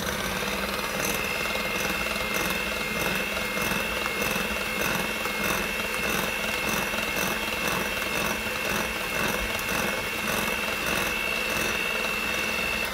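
Hamilton Beach electric hand mixer running steadily with a high motor whine, its wire beaters beating softened butter into whipped eggs and sugar in a glass bowl.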